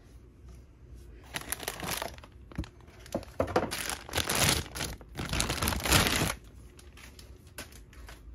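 Clear plastic bag crinkling and rustling in bursts as a toy is worked out of it, starting about a second in and loudest around the middle, then stopping, with a few light clicks after.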